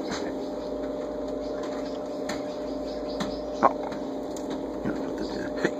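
Kittens moving about on a carpeted cat tree: a few light knocks and scratches over a steady hum, the sharpest knock about three and a half seconds in.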